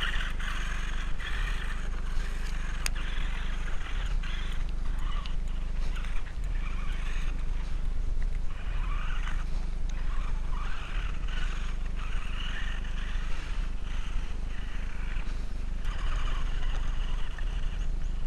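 Tamiya TA02 RC truck's RC4WD 45-turn brushed electric motor and gears whining in repeated rising and falling bursts as it is driven over dirt, over a steady low hum.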